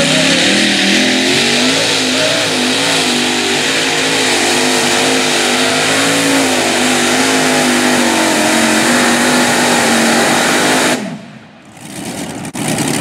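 Multi-engine supercharged Chevrolet super modified pulling tractor running at full throttle under load during a pull. The pitch climbs over the first second, wavers, then holds steady, and the sound drops away sharply about eleven seconds in.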